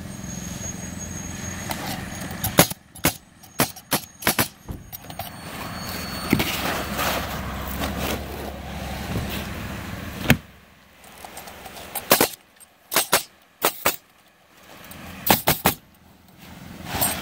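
Pneumatic coil roofing nailer firing into asphalt shingles: sharp shots in quick clusters of three to six, with pauses between, over a steady low background rumble.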